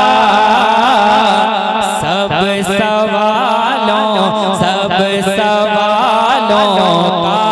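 A male voice singing a naat in a melismatic style, the pitch winding through quick ornaments, the line settling onto a lower note near the end.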